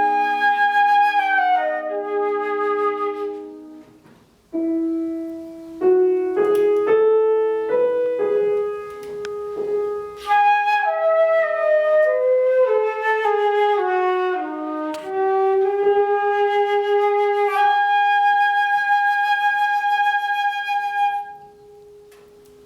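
Live classical duo of a melody instrument and piano playing the closing bars of a piece. The melody breaks off briefly about four seconds in, then resumes and ends on a long held note that stops a second or so before the end.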